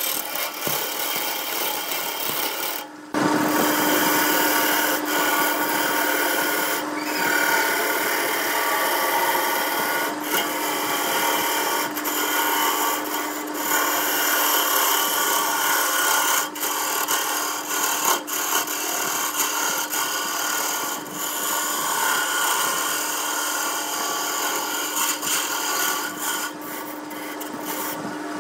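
A gouge cutting a spinning blank of wood and blue epoxy resin on a wood lathe: a steady scraping hiss over the lathe motor's constant hum. There is a brief drop about three seconds in.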